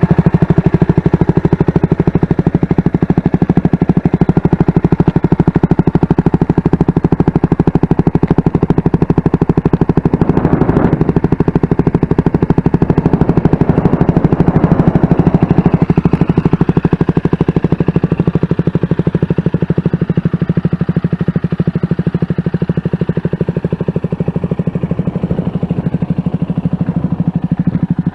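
CFMoto 300SS single-cylinder motorcycle engine idling steadily, with a fast even beat of firing pulses.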